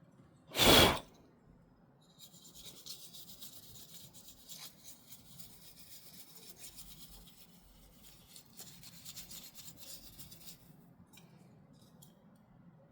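A short, loud burst of noise about half a second in, then several seconds of dry, high-pitched scrubbing and rubbing as dust is cleaned off a laptop's internal parts. The scrubbing stops near the end.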